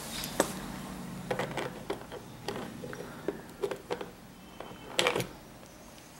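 Metal portafilter of a home espresso machine being fitted into the group head and twisted to lock: a sharp click near the start, then scattered clicks and knocks, the loudest cluster about five seconds in.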